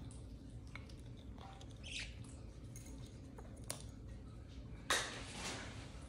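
Faint clicks and taps of a macaw's beak picking seeds from a coconut-shell bowl, with a sudden louder scuffle about five seconds in.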